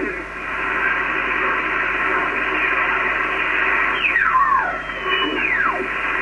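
Kenwood TS-2000X transceiver's receiver audio: steady band hiss through the narrow voice passband between transmissions. About four seconds in, two whistling tones sweep down in pitch, the second after a briefly held high tone.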